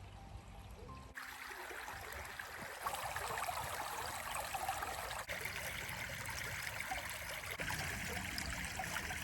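Stream water running and trickling, a steady rush that cuts in suddenly about a second in; before that, only a low rumble.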